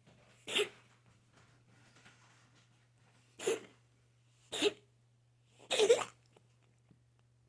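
A bout of coughing: four short, harsh coughs. The first comes about half a second in, then two close together about three seconds later, and the last, loudest one about six seconds in, breaking into several quick hacks.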